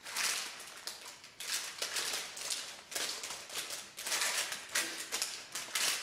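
Spatula scraping and pushing a sticky mixture of oats, almonds and dried fruit into a parchment-lined baking tray, with the parchment paper rustling. The sound comes as a series of short scratchy strokes.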